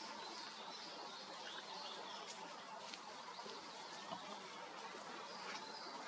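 Faint, short, high bird chirps scattered over a steady outdoor hiss, with a few soft clicks.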